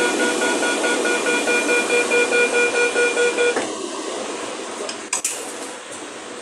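High-speed train door-closing warning: a rapid, loud pulsing beep over a steady hiss, stopping suddenly about three and a half seconds in as the door shuts. A short thud follows about five seconds in.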